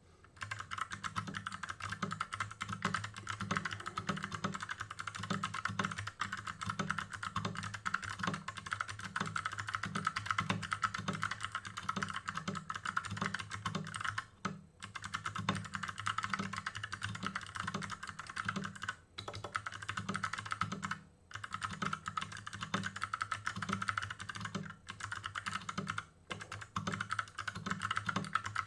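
Fast continuous touch typing on a custom 60% mechanical keyboard with Kailh Box Pink clicky switches, a steel plate and an aluminium low-profile case: a dense stream of key clicks, broken by a few brief pauses.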